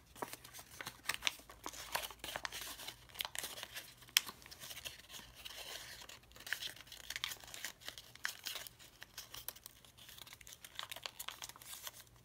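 Origami paper being handled and pressed into a sink fold, crinkling and crackling irregularly as the creases are worked, with one sharper crackle about four seconds in.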